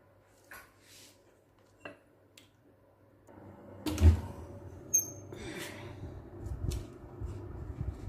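AEG built-in oven door pulled open with a heavy thump about four seconds in, followed a second later by a sharp click, amid rumbling handling noise. A few faint knocks come in the first two seconds.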